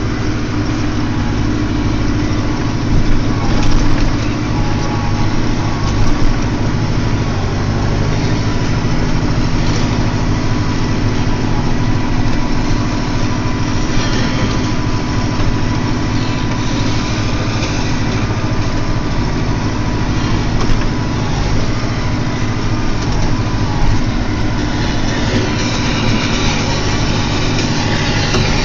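SAME Silver 90 tractor's diesel engine running steadily under load as it pushes a snow plough blade, heard from inside the cab.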